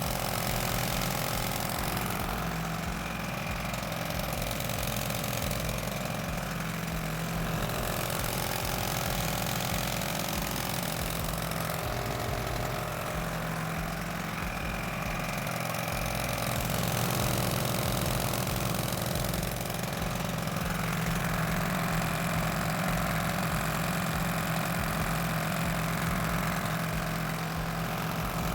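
Engine of a water-pump set running steadily at idle.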